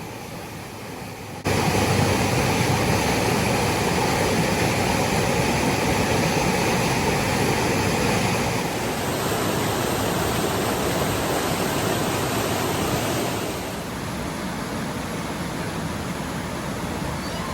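Steady rushing of flowing water. It starts abruptly about a second and a half in, shifts in tone about halfway through, and turns a little quieter near the end.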